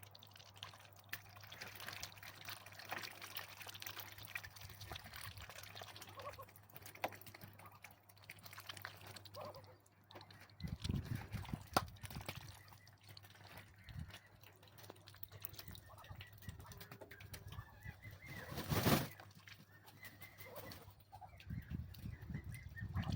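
Water pouring and splashing as birds are watered, with occasional bird sounds. Dull low thumps come in about halfway, and there is one brief loud noise near the end.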